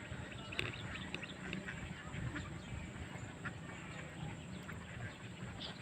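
Underwater ambience: a dense, irregular crackle of small clicks over a steady low hum.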